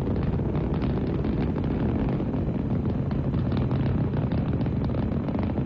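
Saturn V rocket climbing under its five F-1 first-stage engines: a steady, heavy low rumble with dense crackling running through it.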